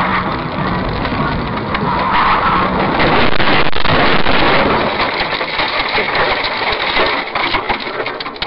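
A moving car's road and wind noise, loud and steady, with a run of knocks and rattles in the second half.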